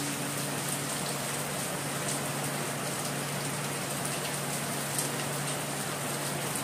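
Onions, garlic, tomatoes and shrimp paste sautéing in oil in a wok: a steady sizzling hiss with small crackles, over a steady low hum.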